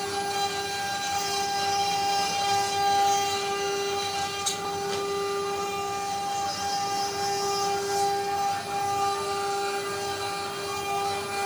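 Multi-head CNC router's spindles running with a steady high-pitched whine over a hiss as the bits carve a relief pattern into a wood panel.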